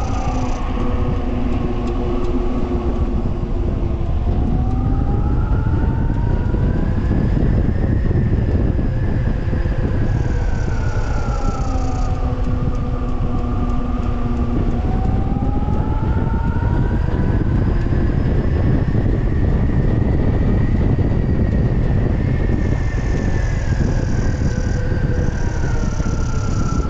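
Wind buffeting the microphone while riding a 72-volt e-bike. Under it, the 3000-watt hub motor whines, rising in pitch as the bike speeds up and falling as it slows, twice over.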